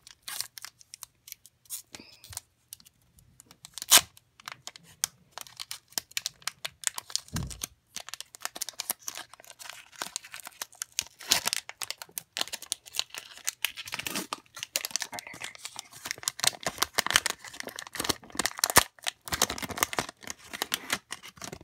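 Foil wrapper of a Pokémon trading card booster pack being ripped open and crinkled by hand, in many short crackles with a sharper snap about four seconds in.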